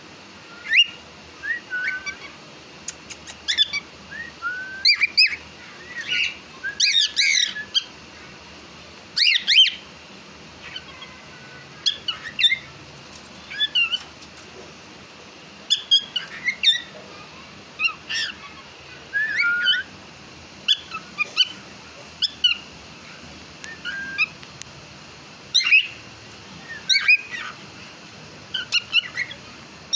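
Cockatiel chirping and whistling: short notes that bend up and down in pitch, coming every second or two.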